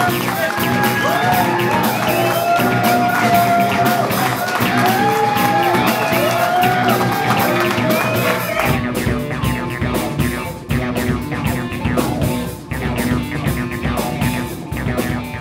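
Rock music: a wavering lead line over steady guitar chords, then about halfway through a deep bass line and heavier drum hits come in.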